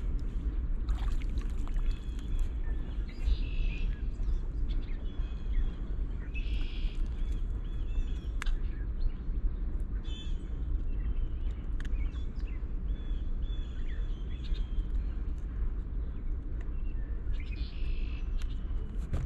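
Birds chirping now and then over a steady low rumble that fills the background.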